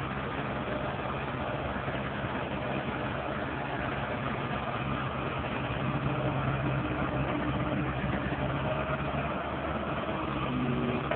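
Komatsu tracked hydraulic excavator's diesel engine running steadily while the machine swings its boom and bucket to dig.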